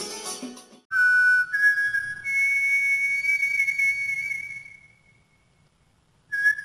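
High, pure whistle tones. A single note starts about a second in and steps up slightly, then a second, higher note joins it. The two are held together for a few seconds and fade out. After about a second of silence, whistle notes start again near the end.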